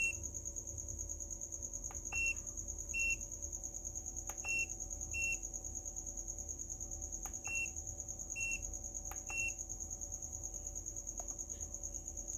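FNIRSI DWS-200 soldering station's speaker giving short, high beeps as its shortcut button is pressed, about eight times in uneven groups, each press switching it to another preset temperature. A steady high-pitched whine runs underneath.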